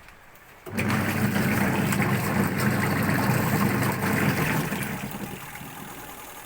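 Twin-tub washing machine motor switching on less than a second in and running with a steady hum and a rushing, churning noise, then easing off over the last two seconds.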